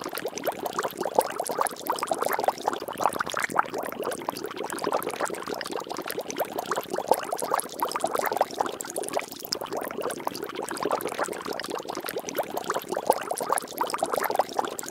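Water bubbling and splashing without a break, a dense run of many small liquid pops and drips.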